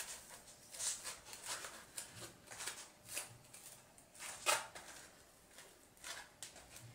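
Hands gripping and turning a foam packing insert, giving faint, scattered rustles and scrapes of foam and plastic, with one sharper scrape about four and a half seconds in.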